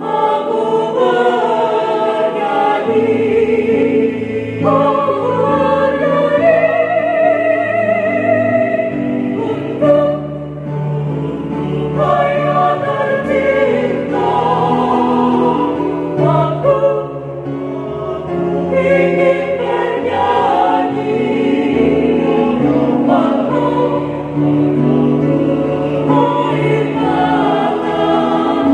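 Mixed choir of men and women singing a slow hymn in parts, holding long notes.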